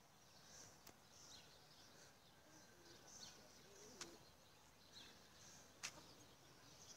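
Near silence with faint, high bird chirps repeating every half second or so, and three sharp clicks about one, four and six seconds in, the last the loudest.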